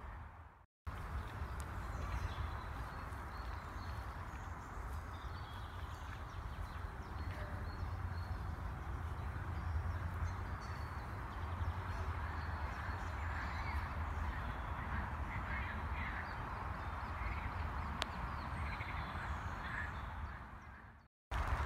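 Park ambience: birds calling faintly, crows among them, over a steady outdoor rumble of wind on the phone's microphone. The sound cuts out completely for a moment just under a second in and again near the end.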